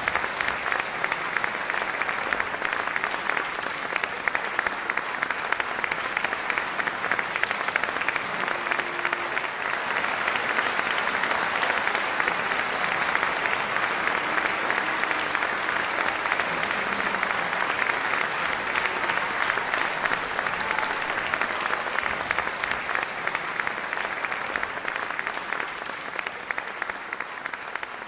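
Audience applauding steadily after a live orchestral and vocal performance, thinning out over the last few seconds.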